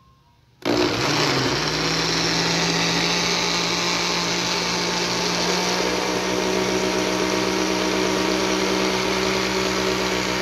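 Countertop electric blender switched on about a second in, its motor spinning up quickly and then running steadily while it purées boiled vegetables with cream.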